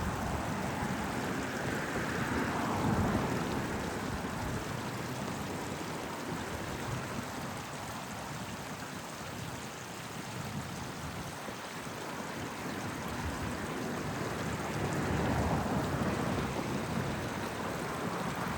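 Small stream running with a steady rush of water. Road traffic in the background swells twice, about three seconds in and again near the end.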